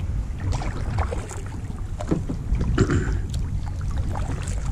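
Kayak paddle strokes: the blades dip into the lake and splash, with water dripping off them, several times over a steady low wind rumble on the microphone.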